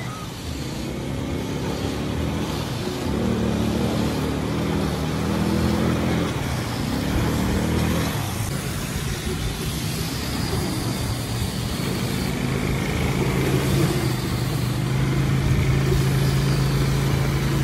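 ATV engine running under way, its note rising and falling with the throttle for several seconds, then holding at a steady pitch in the last few seconds.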